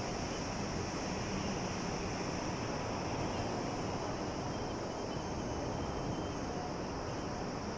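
Sea waves washing on the shore as a steady, even noise, with no single wave crash standing out.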